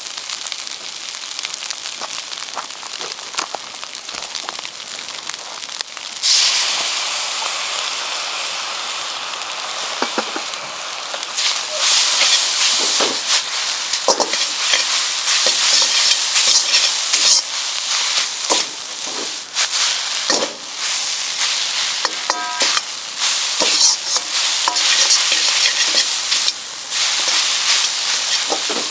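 Food sizzling in an iron wok over a campfire and being stirred, with scrapes and clinks of the utensil on the pan. The sizzle jumps louder about six seconds in and louder again from about eleven seconds, and a brief metallic ring sounds near the end.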